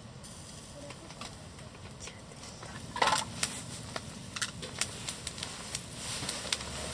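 Campfire crackling in a fire pit, with scattered sharp pops and a louder clatter about three seconds in.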